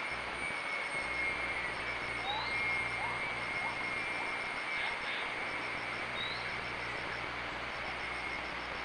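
Outdoor ambience: a steady high-pitched drone over an even hiss, with short rising chirps recurring every few seconds.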